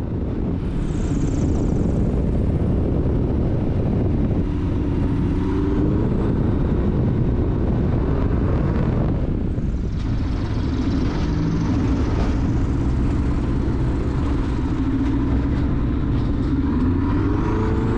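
Engine and propeller of a RANS S-7S bushplane heard from inside the cockpit during landing and rollout on a rough mountain meadow: a loud, steady drone with wind and rumble, the engine note rising and falling a few times as power is adjusted.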